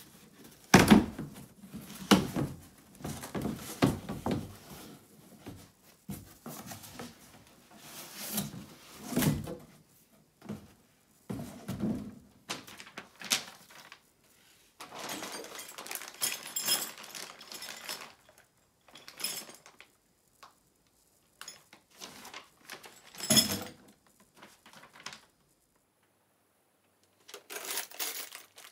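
Handling noise from a large cardboard box being opened and unpacked: irregular thumps, knocks and scrapes of cardboard. Near the end there is a crinkle of a plastic parts bag being handled.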